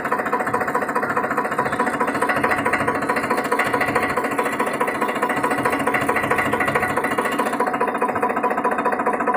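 Tractor engine running at a steady speed with a fast, even knocking pulse.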